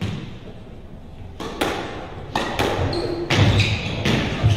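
A squash rally starting: sharp knocks of the ball off rackets and court walls, roughly one a second, each ringing briefly in the court. A brief high squeak, typical of court shoes on the wooden floor, comes about three seconds in.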